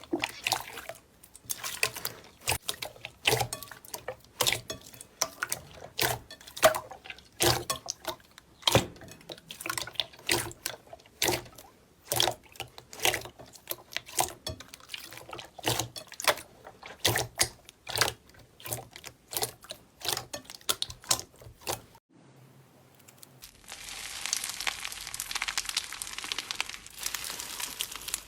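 Slime being squished and pressed by hand, giving irregular wet pops and clicks from trapped air pockets, several a second. After a short pause about 22 seconds in, a steadier crackling hiss fills the last few seconds.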